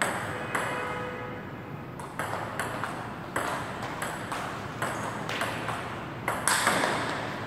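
Table tennis rally: the ball clicking off rubber paddles and bouncing on a Double Fish table, a quick series of sharp ticks spaced about half a second to a second apart.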